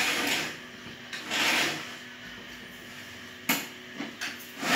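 Manual cup screen-printing machine: the squeegee scrapes across the screen mesh in two rasping strokes, followed by sharp clicks of the machine's screen frame and cup holder.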